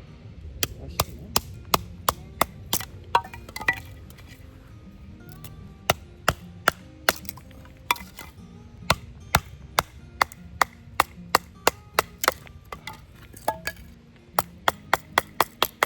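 Chopping on wood: runs of sharp, evenly spaced knocks, about two to three a second, with short pauses between runs.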